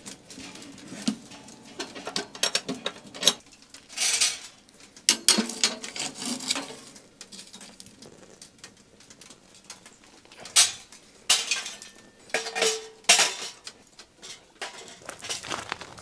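Separate metal clinks and scrapes, some ringing briefly, as steel tongs shift burning charcoal in a small steel fire box and a wood stove's metal door is handled.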